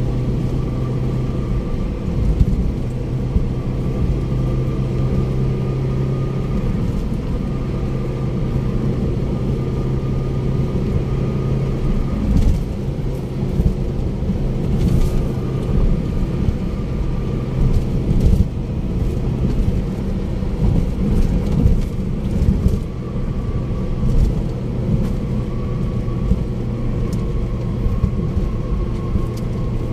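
Car cruising on a highway: a steady engine hum and tyre noise on the road, with occasional light thumps.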